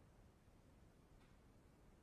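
Near silence: room tone, with one faint click a little past a second in.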